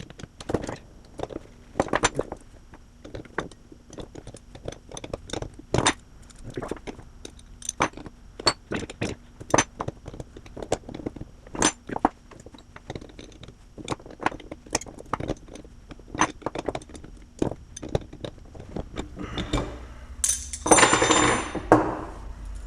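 Steel wrenches clicking and clinking on metal while the nuts of adjustable sway bar end links are tightened, a few sharp clicks a second at an uneven pace. Near the end, a louder, denser clatter of metal.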